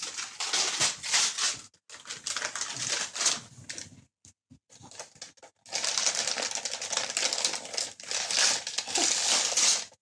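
Gift wrap and tissue paper rustling and crinkling as a present is unwrapped, with a brief lull about four seconds in.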